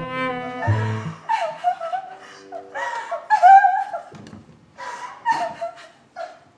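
A bowed cello phrase ends about a second in, followed by scattered bursts of people laughing and snickering.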